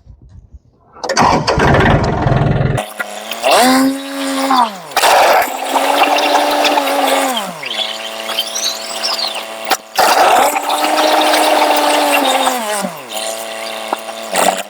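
John Deere 870 compact tractor's diesel engine working under load, its pitch rising and falling several times as the throttle and load change. A rough rushing noise sits under it for a couple of seconds about a second in.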